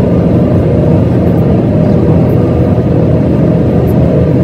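Steady road and engine noise inside a moving car's cabin, a low, even rumble.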